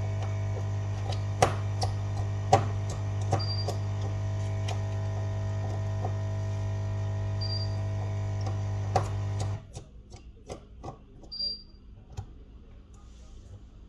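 Steady electrical mains hum from a powered bench appliance, cutting off suddenly about ten seconds in. Scattered sharp clicks and taps of small tools working on the phone run through it, along with a brief high chirp every few seconds.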